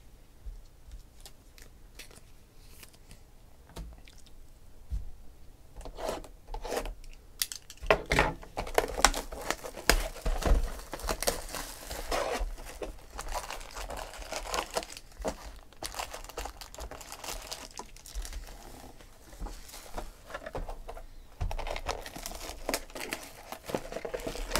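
Wrapping being torn off a box of baseball card packs and the foil packs crinkling as they are handled. A few soft knocks at first, then steady crinkling and tearing from about eight seconds in.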